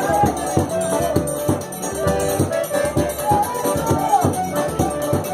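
Forró dance music with a steady, quick drum beat, a shaker, and a held, gliding melody line.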